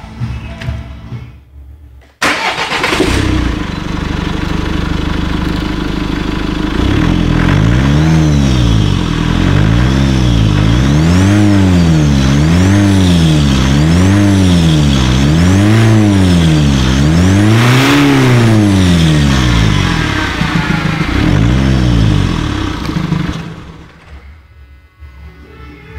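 Mitsubishi Space Star's engine coming in suddenly about two seconds in and running steadily, then revved over and over, about ten quick revs each rising and falling over a second or so. It drops back and the sound falls away near the end.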